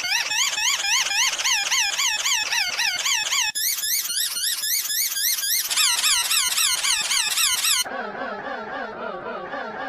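A sad wheezing sound effect, digitally pitch-shifted into a high, squeaky warble whose pitch wobbles up and down evenly a few times a second. About three and a half seconds in it jumps higher, and near the end it drops much lower and duller.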